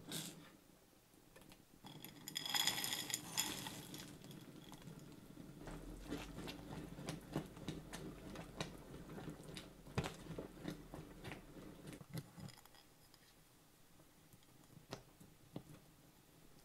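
Silicone spatula stirring thick gravy and frozen vegetables in a stainless-steel skillet: wet squelching with small irregular scrapes and taps against the pan. A brief loud rattle about two seconds in as the frozen peas, carrots and corn go in.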